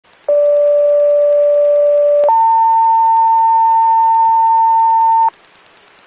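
Two-tone sequential paging tones on a fire dispatch radio channel, heard through a scanner feed: a steady lower tone for about two seconds, then a higher tone for about three seconds. This is the tone-out that sets off the fire department's pagers to alert them to a call.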